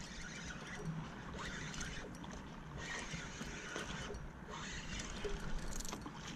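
Quiet ambience of a kayak on calm water: a low, even hiss with a few faint ticks.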